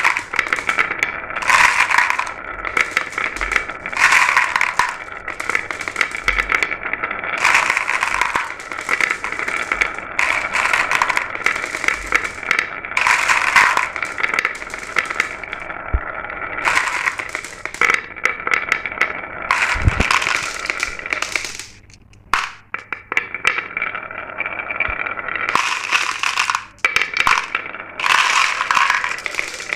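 Glass marbles rolling and clattering down a marble run: a dense, continuous rattle of clicks that thins out briefly about 22 seconds in.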